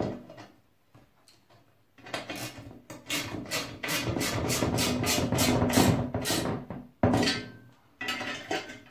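Hand ratchet wrench clicking as a bolt is tightened on a metal bracket: a steady run of sharp clicks, about three to four a second, from about two seconds in, and a short second run about seven seconds in.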